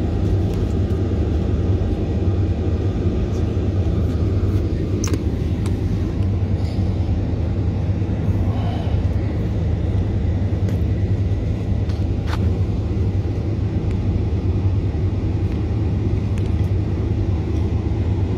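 Steady low rumble of a jet airliner heard from inside its passenger cabin while the plane is on the ground, with a couple of faint clicks.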